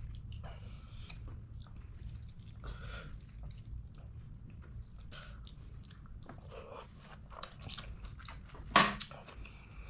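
Close-miked eating sounds: mouth chewing and fingers pulling apart curried whole chicken, with many small soft wet clicks. One loud sharp snap comes near the end.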